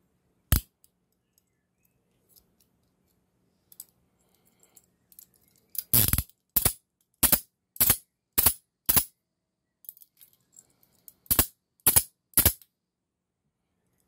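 CTS-Thompson 1010C handcuff worked by hand, its bow clicking through the ratchet: one sharp metallic click about half a second in, then a run of six clicks a little under twice a second from about six seconds, and three more near the end.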